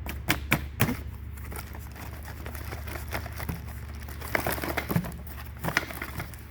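Packaging crinkling, rustling and tearing as an angle grinder and its parts are pulled out of the box, in two bursts: one in the first second and another from about four to six seconds in.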